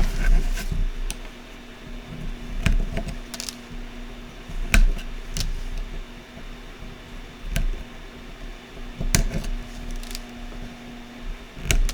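Scattered light clicks and taps of small tools and parts being handled during hand soldering of a circuit board, over a faint steady hum.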